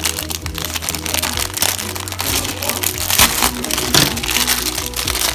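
Background music with steady repeating notes, under a close irregular crinkling and crackling of plastic packaging being handled.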